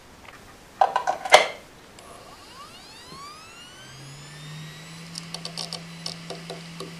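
Western Digital VelociRaptor WD1000DHTZ 10,000 rpm hard drive powering up. A burst of sharp clicks about a second in, then a rising whine as the spindle spins up, settling into a steady hum at full speed. Irregular ticking follows as the heads start seeking.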